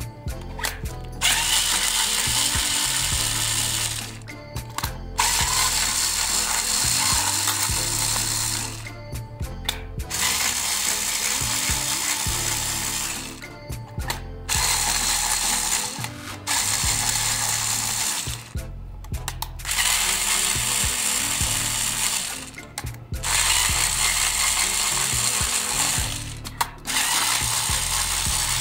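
Cordless electric screwdriver running in repeated bursts of a few seconds with short pauses between, turning screws in a plastic toy's casing.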